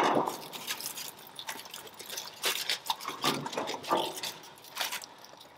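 Garlic butter sizzling in a foil parcel on a hot barbecue, with scattered crackles and clicks from the foil and metal tongs as a cooked mud crab is lifted out.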